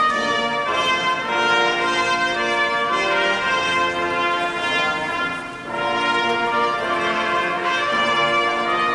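Instrumental music led by brass instruments playing held chords that change every second or so, with a brief softening a little past halfway.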